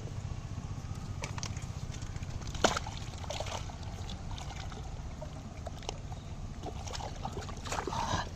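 Water sloshing and trickling, with scattered small splashes and one sharp knock a little under three seconds in, over a steady low rumble.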